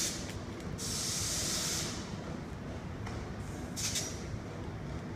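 Bursts of compressed air hissing from a Class 319 electric train standing at the platform: one lasting about a second near the start, then a short one about four seconds in, over a low steady rumble.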